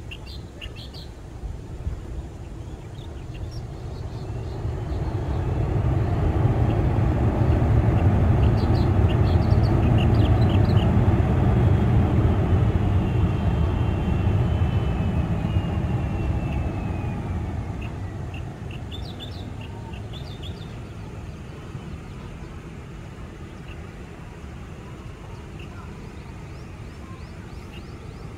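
Boeing 737 Classic jet engines on the landing roll swell to a loud roar and then die away, with a thin whine falling in pitch as the engines spool down. Birds chirp now and then over it.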